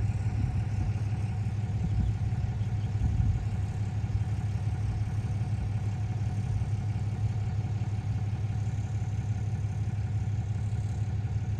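Pickup truck engine idling steadily with a low hum.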